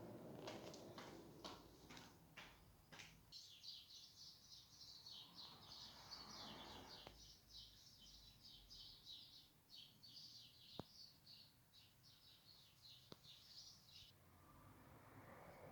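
A few light clicks, then faint, rapid, high-pitched twittering of a small bird for about ten seconds.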